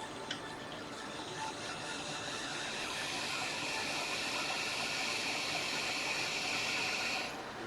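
Hot air rework station blowing: a steady hiss that builds over the first two seconds or so and cuts off suddenly near the end.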